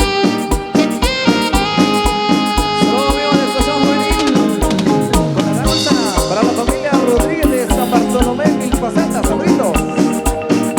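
Loud Latin dance music with brass and a steady drum beat of about two strokes a second, with some sliding notes in the middle.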